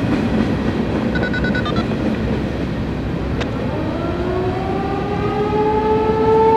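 American Signal T-128 outdoor warning siren starting its monthly test. Over a steady rumble of background noise, with a short run of electronic beeps about a second in, the siren begins winding up about three and a half seconds in: a rising tone that climbs in pitch and grows louder, levelling off near the end.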